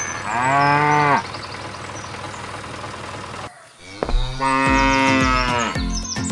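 A cow mooing twice: a short moo near the start and a longer one about four and a half seconds in.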